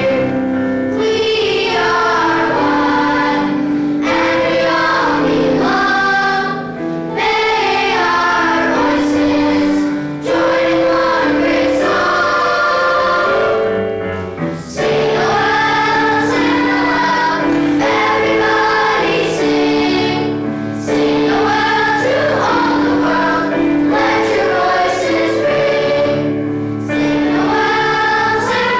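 A choir singing a song with instrumental accompaniment, in phrases separated by short breaths.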